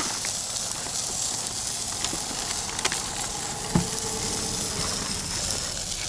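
Chicken sizzling on a small portable charcoal grill, a steady hiss, with a couple of faint clicks and a light knock partway through.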